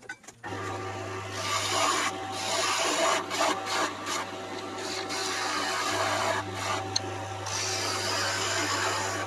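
Wood lathe running with a steady motor hum while a skew chisel cuts a spinning pen blank, giving a continuous shaving and hissing scrape. The lathe and the cutting start about half a second in, and the cut breaks off briefly a few times as the tool lifts.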